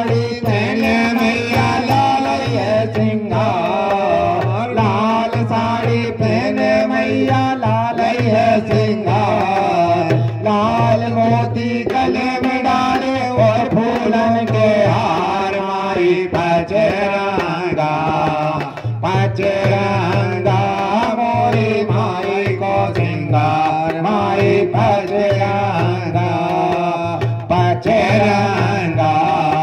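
Folk devotional song to the Mother Goddess (a mata bhajan): two male voices singing through microphones, with a dholak keeping a steady beat.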